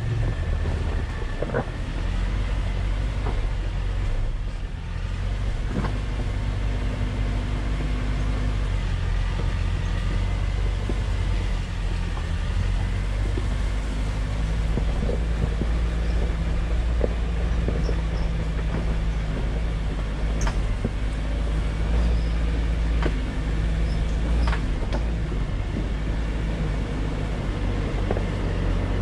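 Jeep Wrangler JL crawling slowly over a rocky trail: the engine runs steadily at low revs, with a few sharp knocks of tyres and suspension on rocks.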